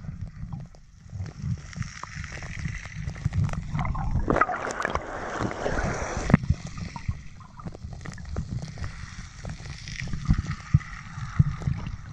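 Sea water moving around a phone held underwater: a muffled low rumble with gurgling and scattered small clicks.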